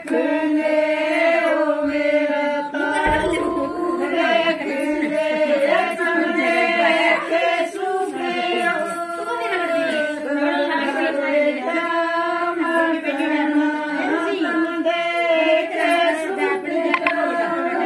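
Women singing a Haryanvi jakdi folk song together, a steady chant-like melody carried on without a break.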